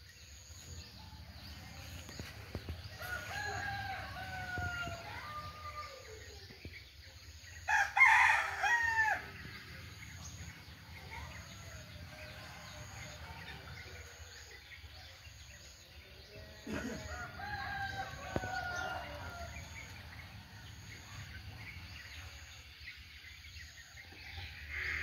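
Roosters crowing three times, each a long cock-a-doodle-doo. The loudest and nearest comes about eight seconds in, with fainter crows before it and after it.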